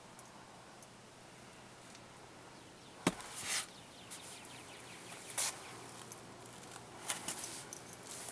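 Faint handling noise and rustling from someone moving about with the camera, with one sharp click about three seconds in and short brushing sounds after it.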